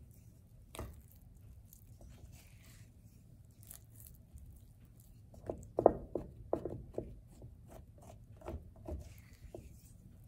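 Silicone spatula stirring and folding a sticky flour-and-water yeast dough in a ceramic bowl: soft squelches and scrapes, with a cluster of sharper knocks a little past halfway through.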